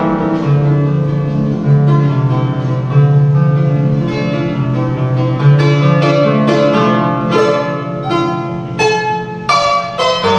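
A harp played solo: a flowing melody of plucked notes over a bass line, each note ringing and fading.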